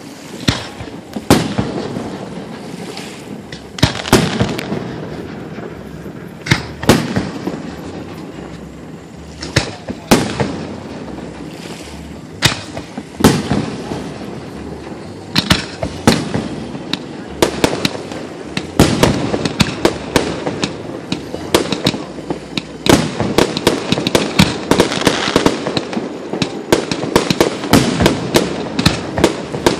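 Aerial fireworks exploding: loud booming bursts a few seconds apart, then a rapid run of many overlapping bangs and crackles from about two-thirds of the way through.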